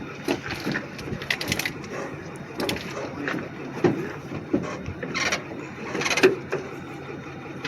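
Irregular knocks and clicks as a vending machine is handled and secured in a pickup truck bed, including a quick rattle of several clicks about a second and a half in.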